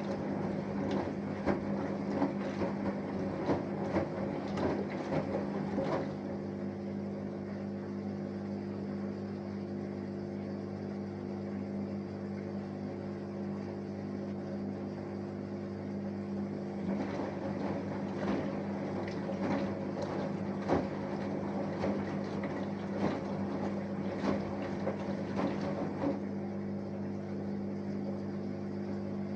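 Samsung Eco Bubble front-loading washing machine mid-wash, with a steady hum throughout. The drum tumbles laundry through water for about the first six seconds, rests, then tumbles again from about 17 s to 26 s.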